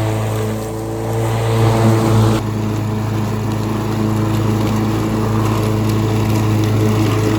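Gasoline lawn mower engine running steadily under mowing, with an abrupt shift in its tone about two and a half seconds in.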